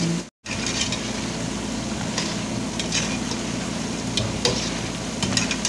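Gemat dough balls deep-frying in oil with a steady sizzle, stirred with a wire-mesh skimmer that clicks lightly against the pan now and then. The sound breaks off for a moment just after the start.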